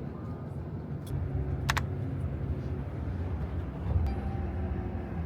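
Road vehicle driving, a steady low rumble, with two short clicks in the first two seconds.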